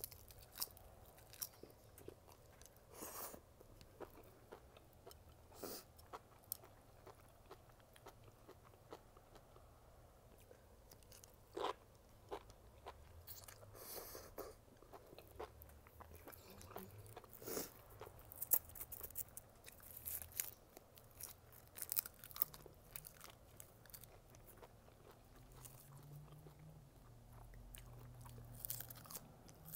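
Close-up eating sounds: a person biting and chewing roasted seaweed sheets, enoki mushrooms and ribbon pasta, with an irregular run of short crisp crunches and clicks.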